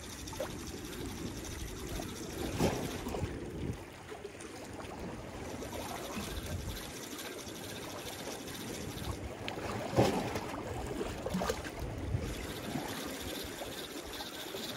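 Sea water lapping and sloshing against concrete breakwater blocks, with a few sharper slaps, the loudest about ten seconds in.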